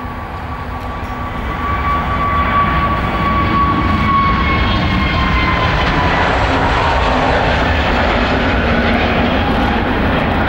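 Airbus A321neo airliner's twin turbofan jet engines at takeoff thrust during the takeoff roll and liftoff: a steady, loud jet roar that builds about two seconds in, with a whine that slowly falls in pitch as the aircraft passes.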